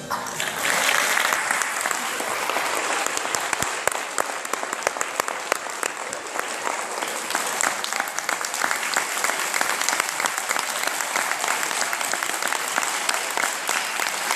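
Audience applauding steadily after a children's choir song ends, with the music stopping just as the clapping begins.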